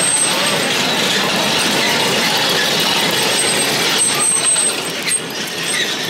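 Crowd noise in a street: a steady, dense din of many people.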